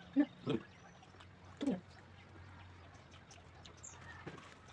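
Three short animal calls, two close together near the start and one more under two seconds in, over a faint steady hum.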